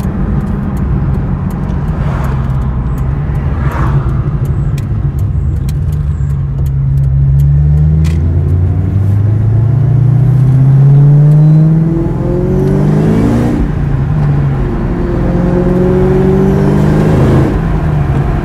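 2003 Mustang Cobra's supercharged 4.6-litre V8 heard from inside the cabin under light throttle, engine not yet fully warm. It runs steadily at first, then the note climbs for several seconds, drops back twice at gear changes and climbs again each time.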